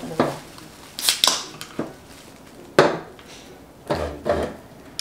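Eating and food-handling noises while bread is being tasted: a few short, sharp crackles and knocks about a second in, near three seconds and around four seconds, with quieter chewing and handling between.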